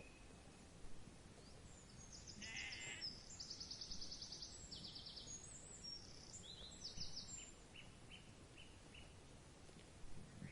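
A faint sheep bleat about two and a half seconds in, among high, rapid trilling bird calls, over a steady outdoor background hiss.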